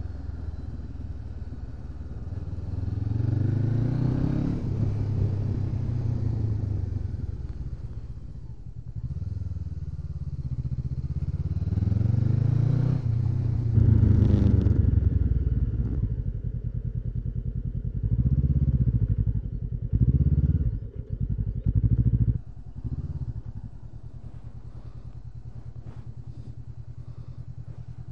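2013 Honda CB500X's parallel-twin engine, fitted with a Staintune exhaust, pulling away and running at low road speed, its note rising and falling with the throttle. Near the end come a few short revs, then the engine settles to a steady idle.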